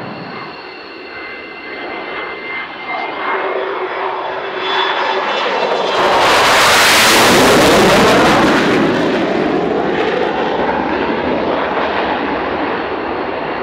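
F-16 fighter jets flying past low: a jet whine builds as they approach, the loud roar peaks about six to eight seconds in as they pass overhead, then the pitch falls as they fly away.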